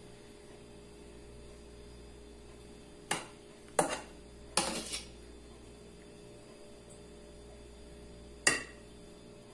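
A metal spoon clinking against the bowl and dish while scooping and spreading meringue topping: a few sharp clinks between about three and five seconds in, and one more near the end.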